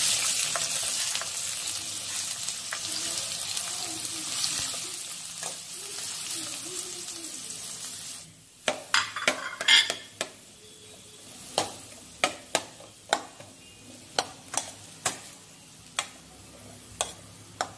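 Chopped onions dropped into hot oil in a steel kadhai, sizzling loudest at first and fading over several seconds. About eight seconds in, a steel spoon starts knocking and scraping against the metal at irregular intervals as the onions are pushed in and stirred, over a fainter sizzle.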